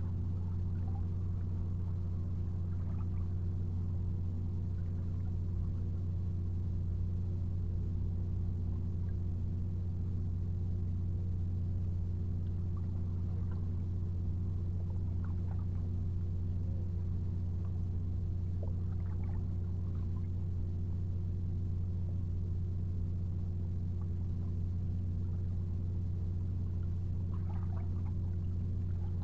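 A steady low mechanical hum that holds the same pitch and level, with a few faint light ticks here and there.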